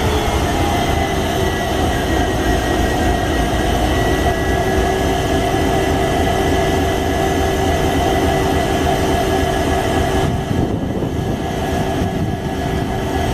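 Twin Indian Railways diesel locomotives, a WDG4D and a WDG4, running with a loud, steady engine hum.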